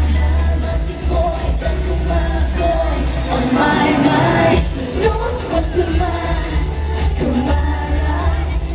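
Live pop music played through the stage loudspeakers: a girl group singing over a heavy-bass backing.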